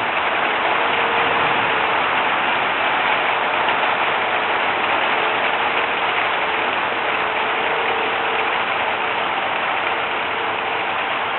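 Steady hiss of heavy rain falling, with a distant tornado siren holding one faint, steady wailing note.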